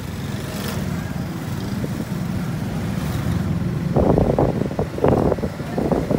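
Motorcycle engine running as the bike rides along a street, with wind buffeting the microphone; from about four seconds in a louder, choppy, irregular noise sets in over the engine.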